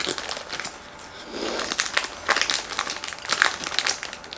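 Plastic pastry wrapper crinkling as it is handled, in short runs of crackles with a lull about a second in.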